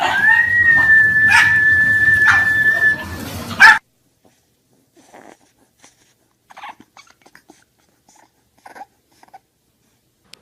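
A dog giving one long, high, steady howling whine for about three seconds, which cuts off abruptly; after that only faint, scattered small sounds.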